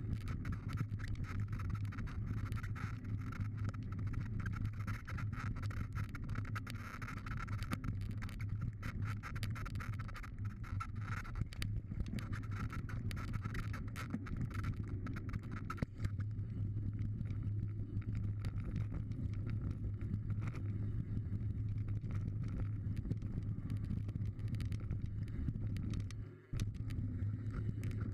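Mountain bike rolling fast down a dirt trail: a steady rumble of tyres on dirt and wind on the microphone, with scattered clicks and rattles from the bike over the rough surface. The sound dips briefly near the end.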